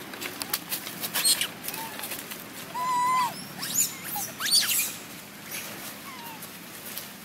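High-pitched squeaks from a baby macaque: several sharp, steeply sweeping squeals and one held call of about half a second near the middle, with light clicks and rustles before them.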